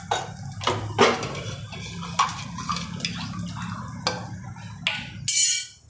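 A wooden spatula knocking and scraping now and then against a clay cooking pot of frying onions, with a brief longer scrape near the end, over a low steady hum.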